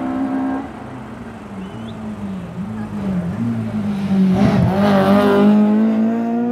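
Rally car engine revving hard as it approaches, its pitch dropping and climbing again through gear changes and growing louder over the last couple of seconds.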